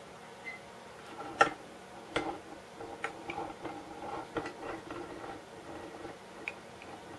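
Sharp clicks and ticks as a plastic USB power adapter case is worked in a small bench vise to crack it open. A loud click comes about a second and a half in, and a few more over the next two seconds, then a run of quieter clicks and scrapes.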